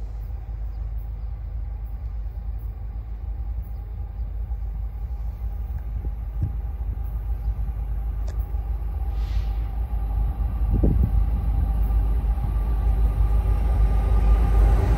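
Approaching diesel freight train: a low rumble that builds steadily louder as the locomotives draw near.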